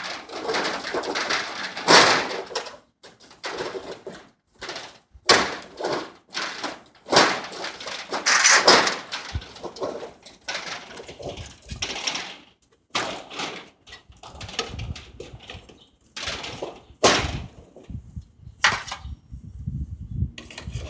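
Irregular knocks, clanks and scraping of hand work on a rolling door's spring assembly, in separate bursts with short pauses between them.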